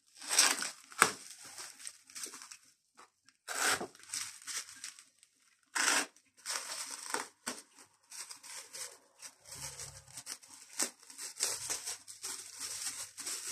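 Thin clear plastic wrapping crinkling and tearing as it is cut with a box cutter and pulled open by hand. The rustling comes in irregular bursts, several of them louder.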